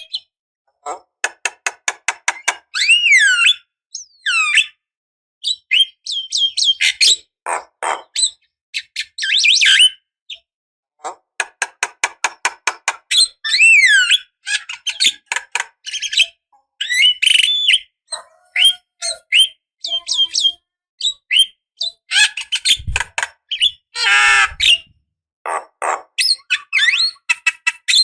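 Javan myna singing a varied, chattering song in bursts with short pauses: fast runs of clicking notes, whistled notes that slide up and down, and harsh squawking calls. Two brief low thumps come near the end beside a harsh call.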